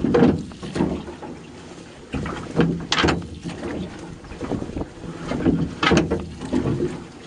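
A wet gill net hauled by hand into a metal boat: water splashing and the net swishing over the side in pulls about every three seconds.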